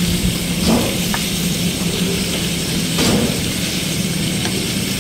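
Pork frying in a pan on a portable gas stove: a steady sizzling hiss, with a wooden spatula scraping the pan twice as the meat is stirred, over a low steady hum.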